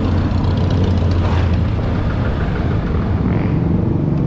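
Vespa S125 scooter's single-cylinder four-stroke engine running at a steady cruise while riding, with wind and road noise over it.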